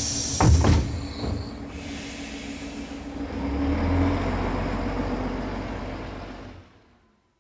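Metro train carriage: a steady air hiss cuts off, a sudden loud clunk with a falling tone follows, then the train's low rumble swells and fades out to silence near the end.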